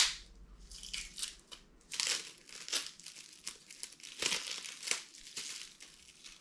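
Clear plastic wrap crinkling in irregular crackly bursts as it is pulled off a knife blade, after a single sharp click at the start.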